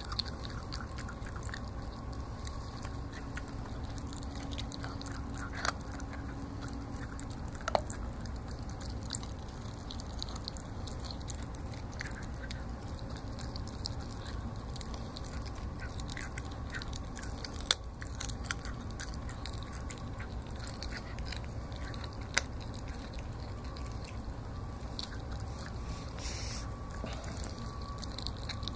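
Donovan Pinscher puppy chewing raw chicken neck, irregular wet chewing with scattered crunches and a few sharp cracks, over a steady low background hum.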